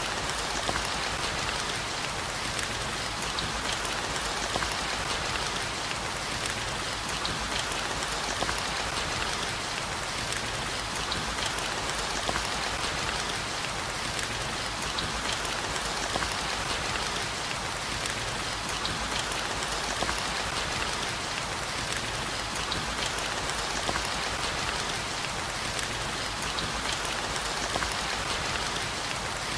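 Steady heavy rain, a dense, even patter of many small drops with no let-up.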